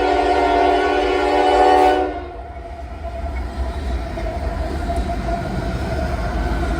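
Diesel locomotive air horn sounding a chord of several notes, cutting off about two seconds in, followed by the steady rumble of the train rolling past.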